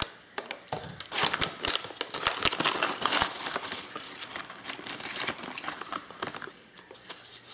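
Plastic packaging and bubble wrap crinkling as hands handle and open a plastic pouch: a run of quick crackles, busiest in the first few seconds and thinning out near the end.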